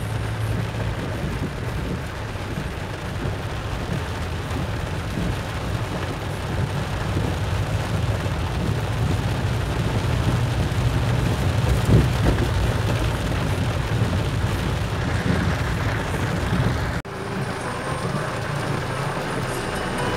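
Car driving on a wet dirt road in rain, heard from inside the cabin: a steady engine hum under tyre and rain noise. A brief louder jolt comes about twelve seconds in, and the sound cuts out for an instant about three seconds before the end.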